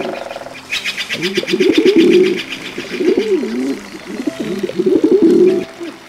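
Pigeon cooing in three low, rolling phrases. During the first phrase, a fast high-pitched ticking runs behind the cooing for about two seconds.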